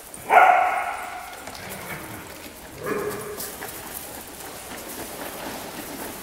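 A dog gives two loud pitched calls, the first about a third of a second in and fading over about a second, the second shorter and quieter about three seconds in.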